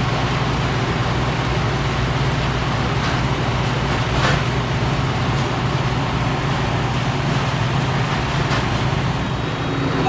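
Reach-in freezer's condensing unit running: a steady low compressor hum under an even rush of condenser fan air, with a few faint taps. It is running to pull the box temperature down.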